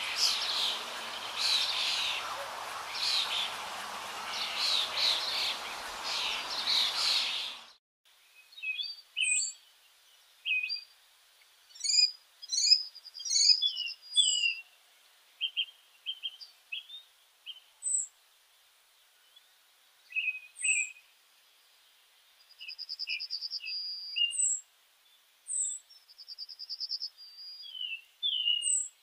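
Birds chirping: a busy mix of chirps over a steady hiss that cuts off abruptly about eight seconds in. It is followed by sparse, clear chirps, short falling whistles and a couple of buzzy trills.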